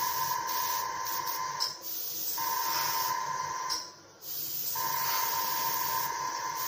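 Airbrush spraying lacquer paint at about 20 PSI: a steady hiss of air with a steady whistle-like tone in it, in three long bursts with short breaks about two and four seconds in as the trigger is let off. The paint is not thinned enough, by the painter's own account.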